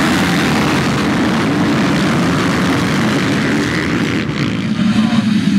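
A large pack of motocross bikes accelerating hard away from the start, many engines revving at high throttle at once in one dense, unbroken drone.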